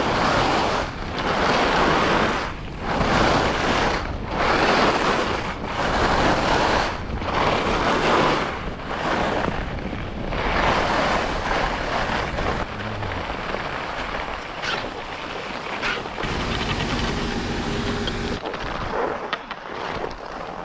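Skis carving short turns on hard-packed, groomed corduroy, each turn an edge scrape about once a second, over steady wind on the microphone. After about twelve seconds the turn rhythm fades into steadier wind noise, with a few clicks near the end.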